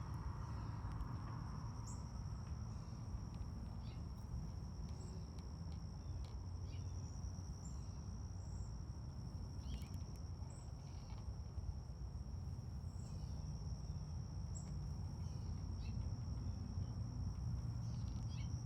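Insects trilling on one steady high-pitched note, with scattered faint short chirps above it and a low rumble underneath.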